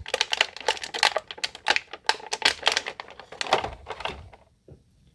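Rapid clicking and crackling of plastic packaging as a small plastic figure is worked out of it, stopping suddenly about four seconds in.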